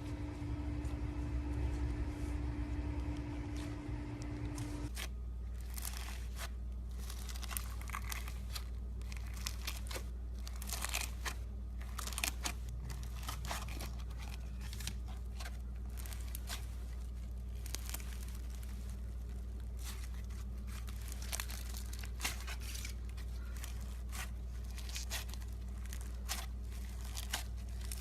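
A steady hum with a low rumble, then, about five seconds in, an abrupt change to slime being handled close up: irregular crackles, pops and crinkly clicks as it is squeezed and pressed.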